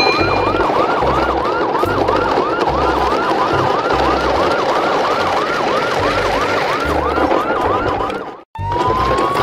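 Electronic police-style siren: a rising wail, then a rapid yelp of about three whoops a second. Low thuds sound underneath. Near the end it cuts off abruptly and starts over with the rising wail.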